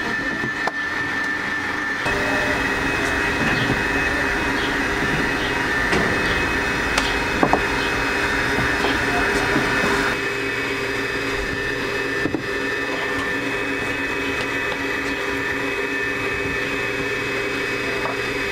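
Eurolux electric stand mixer running steadily, its beater whirring through cream in the steel bowl, with a few light knocks.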